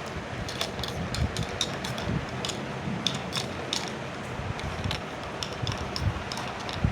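Miniature plastic toy kitchen pieces being handled, giving a run of small, irregular clicks and ticks over a steady hiss.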